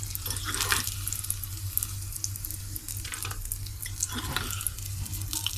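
Eggplant (brinjal) pieces frying in hot oil, with an irregular sizzle and crackle.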